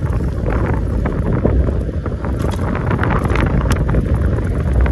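Heavy wind buffeting the microphone while a Nakto Camel electric bike is ridden along a road. Scattered short squeaks come from the bike, which the rider puts down to having ridden it through a thunderstorm.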